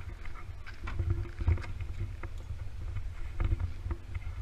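Wind buffeting the microphone: a gusty, fluctuating low rumble, with scattered light clicks and knocks.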